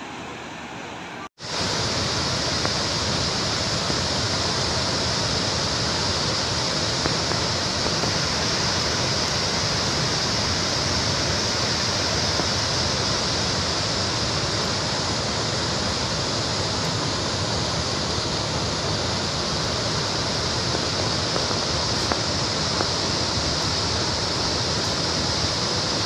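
Bogatha waterfall in flood: a steady, heavy rush of water falling and floodwater pouring across the pool below. The sound cuts out for an instant about a second in, then carries on louder and unbroken.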